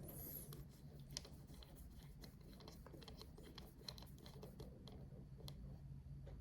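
Faint, scattered small clicks and handling noise of small hardware as the screw holding an NVMe SSD to a PCIe adapter card is fitted, over a low steady hum.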